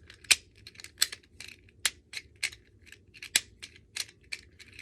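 Pop ASMR pod fidget toy being clicked and popped by hand: about a dozen sharp plastic clicks at an uneven pace, roughly two or three a second.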